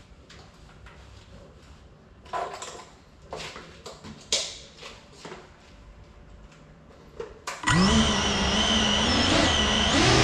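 A small FPV drone's brushless motors start up suddenly about three-quarters of the way in, a loud, steady buzzing whine whose pitch wavers slightly as the motors idle ahead of takeoff. Before that, only a few faint clicks and knocks.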